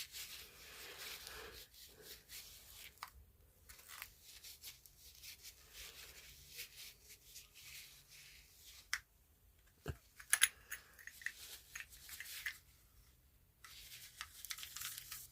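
Faint, intermittent rubbing and scraping of a paper towel being worked into the head of an old flashlight to clean out dried dirt, with a few sharp clicks about ten seconds in.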